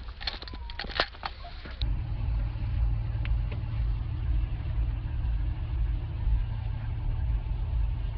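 A few sharp clicks and knocks, then a steady low rumble starts suddenly about two seconds in: a vehicle's running engine and road noise heard from inside the cabin.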